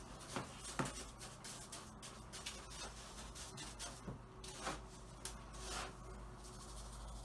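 Plastic slotted litter scoop scraping and sifting through cat litter in a plastic litter tray: faint, irregular granular rustles and scrapes, with a few sharper scrapes scattered through.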